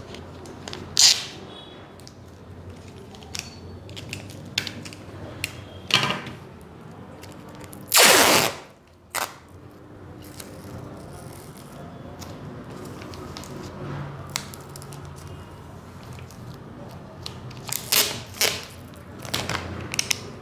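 Clear sticky tape pulled off its roll in several short rips, the longest and loudest about eight seconds in, with a quick run of rips near the end.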